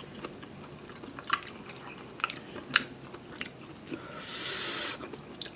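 Mouth sounds of eating very spicy instant noodles: soft wet chewing clicks, then a loud hissing draw through the mouth lasting about a second, about four seconds in.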